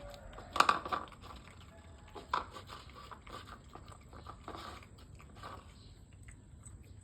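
Pitbull puppy chewing and biting, a series of short, irregular crunching sounds. The loudest comes just after half a second in, and a sharp one at about two and a half seconds.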